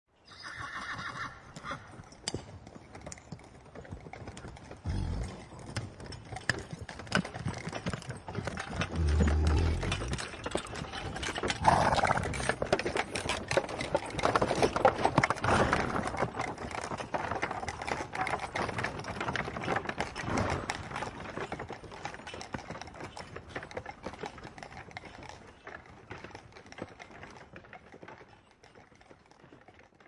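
A horse neighs once at the start. Then come its hooves clip-clopping and an old cart rattling behind it, growing louder toward the middle and fading away near the end as it passes.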